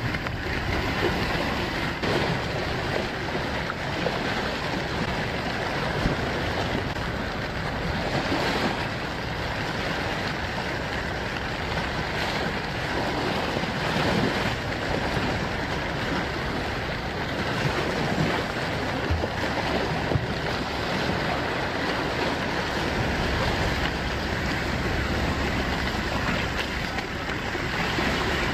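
Steady noise of wind and sea waves, with wind blowing on the microphone.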